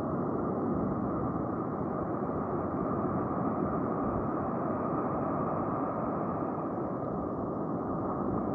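Steady roar of ocean surf breaking on the beach, a constant dull rushing noise with no distinct events.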